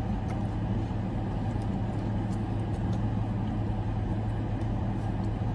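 Steady low hum of a parked Dodge Challenger idling, heard inside the cabin, with a few faint clicks from eating.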